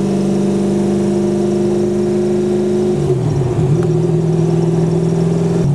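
Twin-turbo 427 cubic-inch LSX V8 of a Factory Five GTM, heard from inside the cabin, running at a steady cruise. About three seconds in the engine note drops and wavers briefly, then settles at a lower steady pitch.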